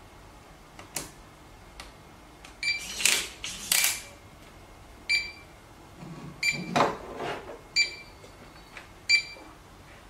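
Electronic cabinet lock giving a series of short, high single beeps about a second and a half apart, its reset-mode signal after the reset button is pressed with a pin, before it falls silent ready to enrol the admin card. Between the beeps come knocks and clacks of the plastic lock box being picked up and set down.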